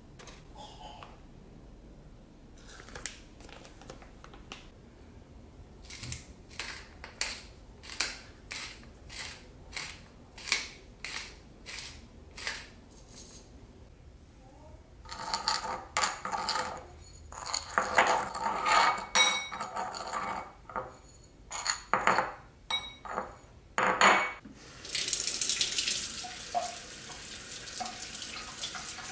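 A spoon repeatedly clinks and scrapes against a ceramic bowl as dry spice powders are stirred, in soft even strokes at first and then in louder, busier clatter. Near the end a kitchen tap starts running steadily, the water splashing over a raw chicken in the sink.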